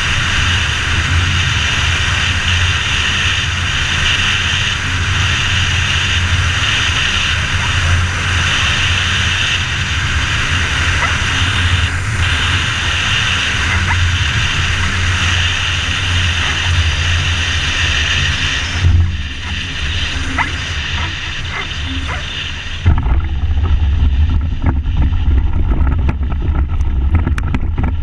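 Rotax 912ULS four-cylinder four-stroke engine and three-bladed propeller of an ultralight trike running steadily in flight. About 19 seconds in the sound thins and drops; near the end a heavier low rumble takes over with wind buffeting the microphone.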